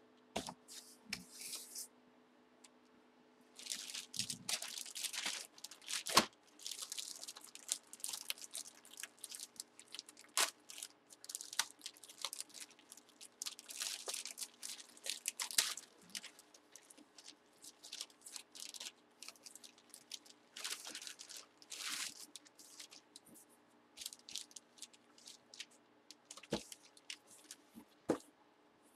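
Plastic bag crinkling and rustling in irregular bursts as a bagged jersey is handled and opened, with cardboard box handling and several sharp knocks, the loudest about six seconds in.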